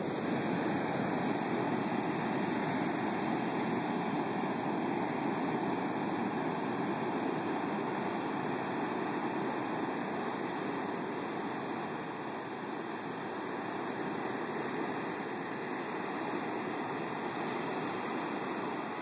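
Heavy storm-surge surf breaking and washing up a long beach: a steady rush of water that swells and eases slowly as the waves come in.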